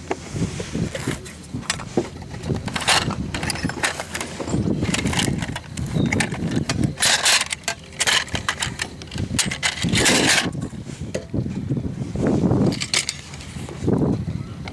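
Metal tools being handled: a steel drill index box opened and its drill bits clicking and rattling under a hand, with scattered clinks and a few louder scraping rustles.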